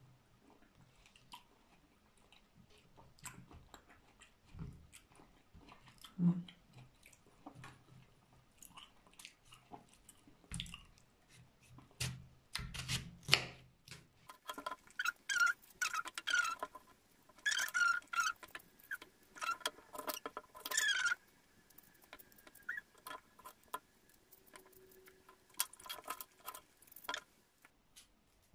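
A knife cutting through watermelon on a plastic cutting board: crisp crunching and squeaky scraping of the blade through the rind and flesh, with light taps and a few dull knocks on the board. The cutting is densest in the middle of the stretch.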